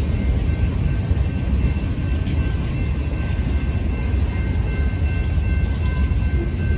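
Freight train of boxcars and lumber-loaded flatcars rolling past: a steady low rumble of wheels on the rails, with a steady high ringing of several tones over it.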